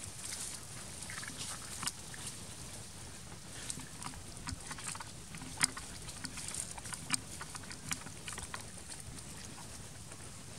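Long-tailed macaque chewing mango close up: irregular wet smacking and clicking from its mouth, the loudest click about halfway through.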